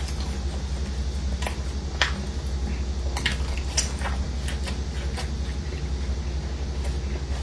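Scattered small clicks and taps of eating and handling food and utensils, over a steady low hum.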